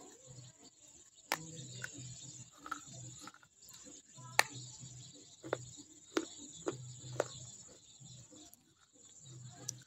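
Pieces of baked clay pot being bitten and chewed close to a microphone: sharp crunches, about eight of them spread through the stretch, the loudest about midway.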